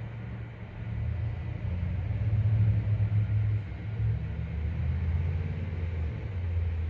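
A motor vehicle's engine running with a low rumble. It grows louder about a second in, and its pitch steps down partway through and then holds steady.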